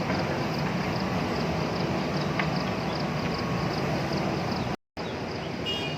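JCB backhoe loader's diesel engine running steadily, with a faint regular ticking high above it. The sound drops out for an instant about five seconds in.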